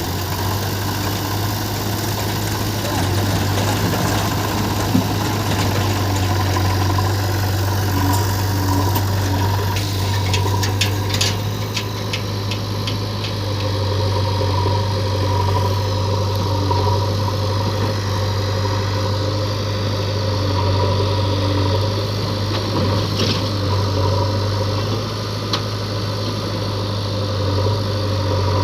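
Heavy diesel engine running steadily at idle, with a run of short sharp clicks and knocks about ten to twelve seconds in.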